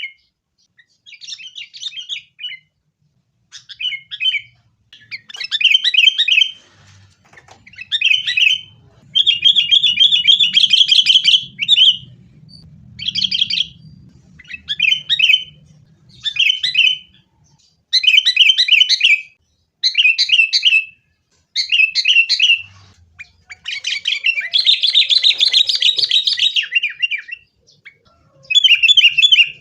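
Sooty-headed bulbul (kutilang) singing in a busy string of short, fast, chattering phrases, with longer bursts of chatter about ten and twenty-five seconds in.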